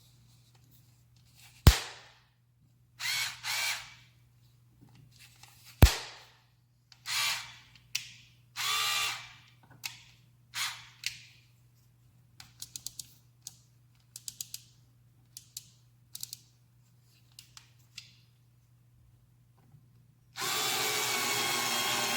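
AVID POWER 4V cordless electric screwdriver running in several short whining bursts, with two sharp clicks early and a run of quick ticks in the middle. A longer steady run starts near the end.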